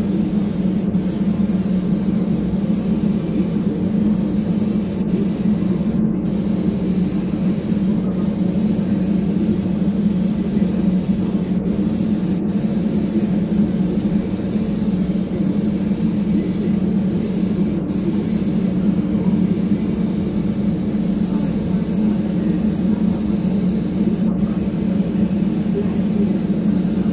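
Gravity-feed spray gun hissing steadily as it sprays base coat paint onto lure blanks, over a steady low machine hum.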